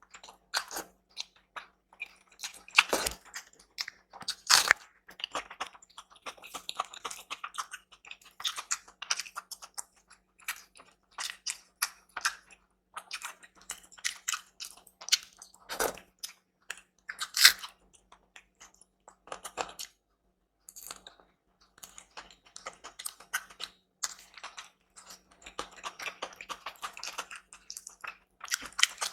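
Close-miked eating: irregular chewing and biting with crisp crunching and wet clicks, a few bites much louder than the rest, and a short pause about two-thirds of the way through.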